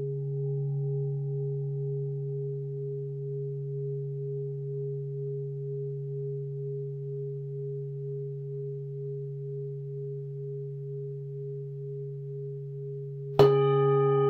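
Singing bowls: a low, steady ring that pulses slowly, then a bowl struck sharply near the end, ringing on with several bright overtones.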